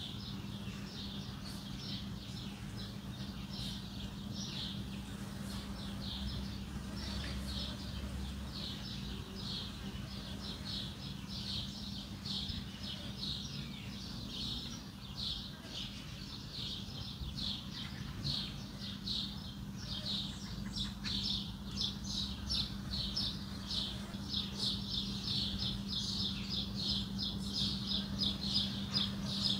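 Many small birds chirping in quick, overlapping notes, getting busier and louder toward the end, over a steady low hum.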